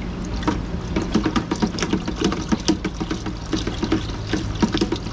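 Water splashing and sloshing in a plastic hydroponic bucket as the nutrient solution is stirred with a rod, in quick irregular splashes, while water runs in slowly from a gravity-fed line.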